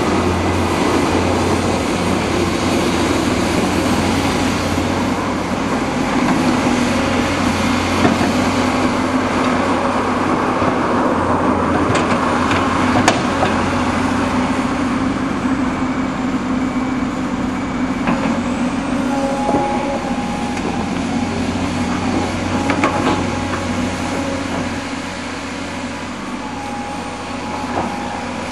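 Tracked excavator's diesel engine running steadily under load as it digs in wet clay, with a few sharp clanks.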